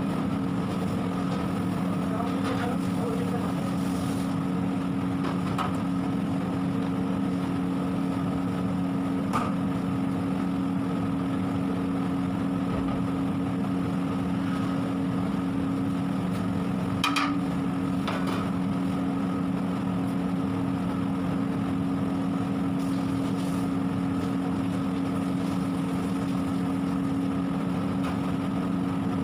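A steady, even mechanical hum with a few brief sharp clicks or knocks, the loudest about 17 seconds in.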